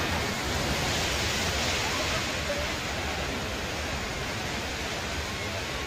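Arabian Sea waves washing on the shore: a steady rush of surf that swells slightly in the first couple of seconds.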